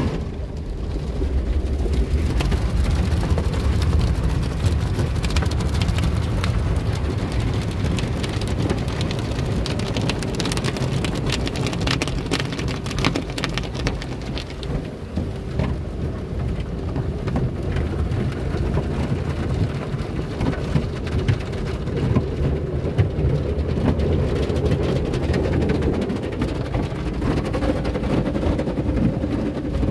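Automatic soft-cloth car wash heard from inside the car's cabin: water spray and cloth wash strips hitting the roof and windows, a steady noise with a deep rumble that starts suddenly. A stretch of sharper spattering comes about a third of the way through.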